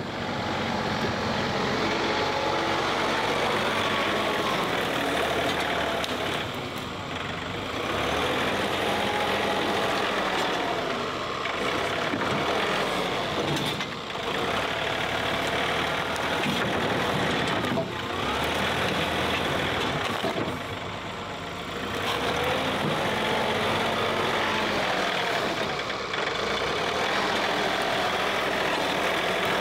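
John Deere 3046R compact diesel tractor running under load as its front loader pushes into a brush pile of logs. The engine note dips and picks up again several times.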